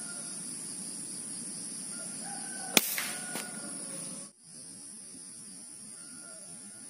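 Air rifle fired once: a single sharp crack about three seconds in, followed by a fainter click, over a steady high insect buzz.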